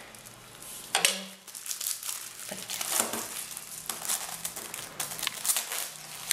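Plastic wrapper of a packet of biscuits crinkling and crackling as it is cut open with a kitchen knife, in a run of irregular crackles with a sharp one about a second in.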